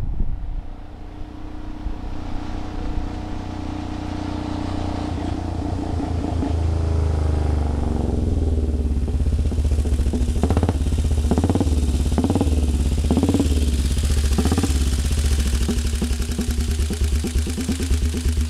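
A 1927 Sunbeam race motorcycle approaching from a distance, its engine growing steadily louder. As it slows there are several sharp bursts about a second apart. It then settles into a quick, even idle close by.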